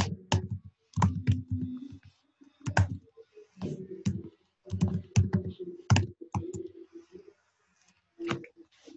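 Typing on a computer keyboard: irregular clusters of quick keystrokes with short pauses, entering a terminal command, with the typing stopping near the end.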